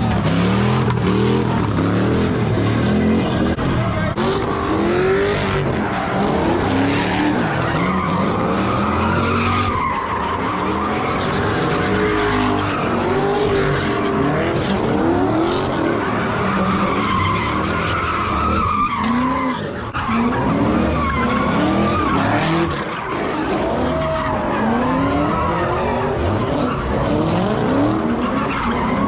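Cars doing donuts: engines revving up and down over and over, with a continuous wavering tyre squeal.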